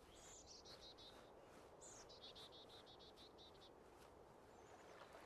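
Faint bird song: two runs of quick, high chirps, each run falling in pitch, with a soft call near the end.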